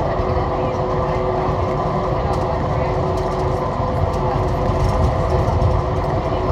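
Stansted Airport's automated rubber-tyred people-mover car running through its tunnel, heard from inside the car: a steady low rumble with a steady drive hum at several pitches.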